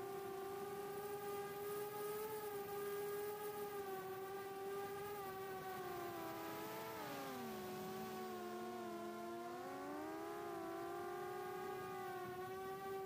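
4-inch FPV quadcopter's HGLRC 1303.5 4500kv brushless motors and propellers whining steadily in flight, picked up by the onboard camera. About halfway through the motors slow: the whine drops in pitch and splits into separate tones, then rises back to its cruising pitch near the end.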